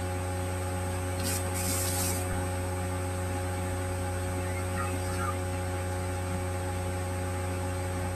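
Steady electrical mains hum: a low drone with several faint steady tones above it, under a light hiss. A short soft burst of hiss comes about a second and a half in.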